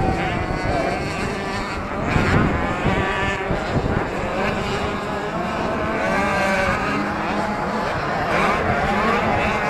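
Several 65cc two-stroke motocross bikes racing around the track, their engines revving up and down in overlapping whines.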